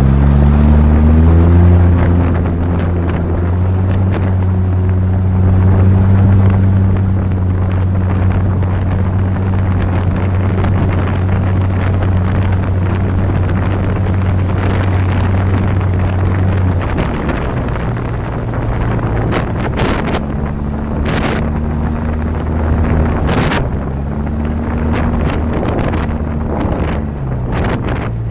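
2008 Polaris RZR 800 side-by-side's twin-cylinder engine running under way. Its pitch rises over the first couple of seconds and holds steady until it eases off about two-thirds of the way through, then rises and falls again near the end, with wind on the microphone and a few sharp knocks.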